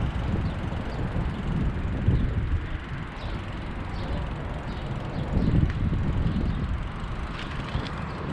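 Wind buffeting a chest-mounted action camera's microphone during a bicycle ride: a low rumble that swells and fades over steady rolling noise, with a few faint short high chirps above it.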